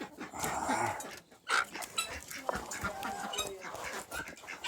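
Chickens calling in a poultry pen, amid scattered clicks and knocks.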